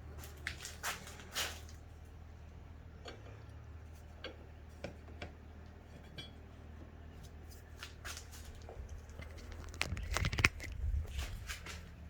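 Scattered clicks, knocks and rustles of hands handling tools or parts, over a low steady hum, with a cluster of louder knocks about ten seconds in.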